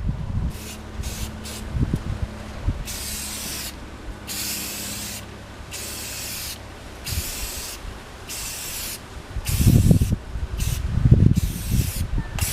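Sandpaper rubbing on the wooden parts of a loft bed in repeated strokes, about one hissing stroke a second, each with short pauses. Low knocks and rumbles come near the end as the workpiece is handled.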